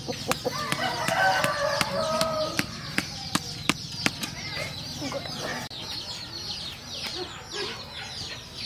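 Chicks peeping continuously, a busy chorus of short, high, falling chirps. Sharp taps and clicks are scattered through it.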